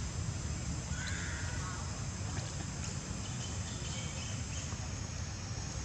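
Outdoor ambience: a steady high-pitched insect drone over a low rumble, with a few faint, short animal calls about a second in and again around the middle.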